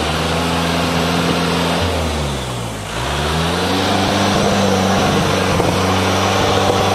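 Modified off-road 4x4's engine held at high, steady revs; about two seconds in the revs drop and climb straight back up, then hold again.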